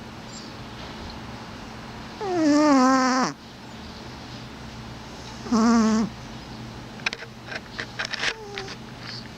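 A pet snoring with drawn-out, wavering moans: one about a second long a couple of seconds in, a shorter one past the middle, then a few quick clicks and snuffles near the end.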